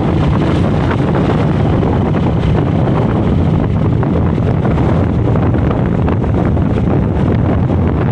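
Steady heavy wind noise on the microphone of a moving vehicle, with engine and road noise running underneath.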